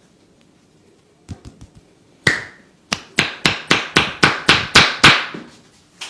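Massage percussion from hands striking the body: a few soft taps, one sharp slap, then a quick even run of about ten loud claps at three to four a second.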